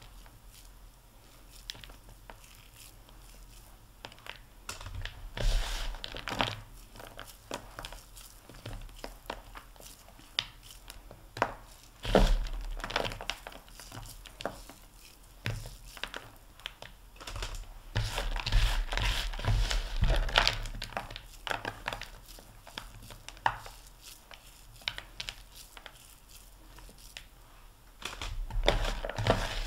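Hands squeezing and rolling a crumbly chopped-pecan mixture in a bowl, giving irregular crackly rustling and crunching as the crumbs are pressed together. It is louder in stretches about five seconds in, around twelve seconds, for a few seconds in the middle, and again near the end.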